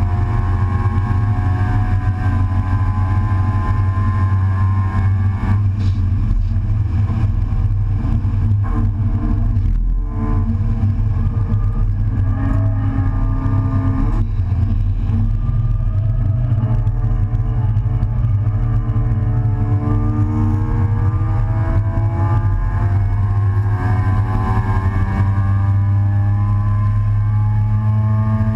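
Race car engine under load, heard from inside the open-top, stripped cockpit with heavy wind and road rumble. Its pitch rises and falls through gear changes and corners, with a brief lift about ten seconds in and a long climb in revs near the end.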